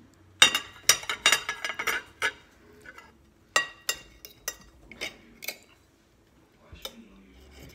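Metal knife and fork clinking and scraping on a ceramic plate while cutting into a fried egg: a quick run of ringing clinks in the first couple of seconds, then scattered single clinks.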